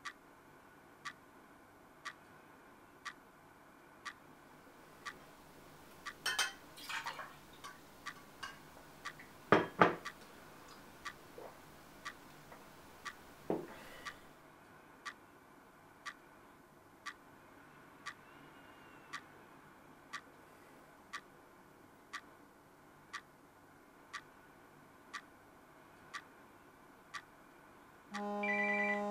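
Wall clock ticking once a second in a quiet room, with a few louder knocks and rustles midway. Near the end a mobile phone's ringtone starts.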